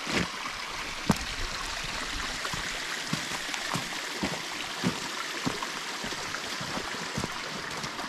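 Shallow mountain stream flowing over rocks in a steady rush, with footsteps on a snowy path ticking at a steady walking pace.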